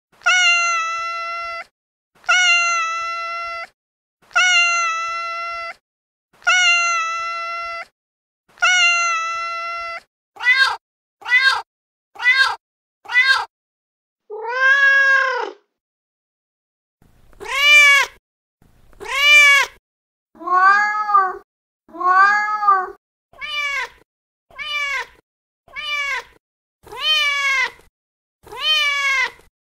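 Recorded domestic cat meows played one after another from a cat-sound app: five long meows held at one pitch about two seconds apart, then four short quick meows and a single arching meow. After a short pause comes a run of about ten meows rising and falling in pitch.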